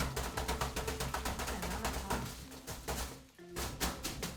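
Background music with a fast, steady percussive beat over held notes, briefly dropping out about three seconds in.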